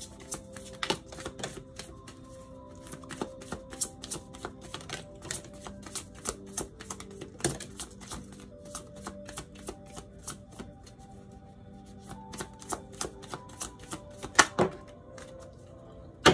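A deck of tarot cards being shuffled by hand: a quick, uneven run of crisp card clicks and flicks, with two louder knocks near the end. Soft background music plays underneath.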